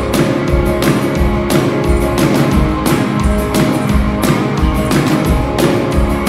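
A live rock band playing with guitars and a drum kit, keeping a steady beat.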